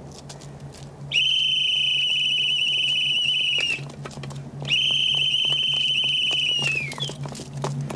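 Two long blasts on a hand-held signal whistle, the second falling in pitch as it ends, over a low steady hum. The blasts are a warning to clear the area before demolition charges are set off.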